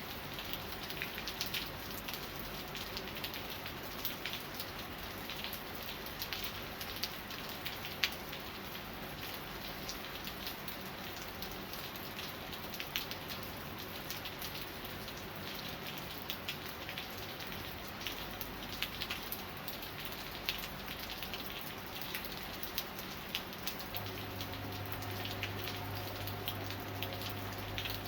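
Rain falling steadily, with many individual drops tapping sharply close by. About four seconds before the end, a low steady hum comes in under the rain.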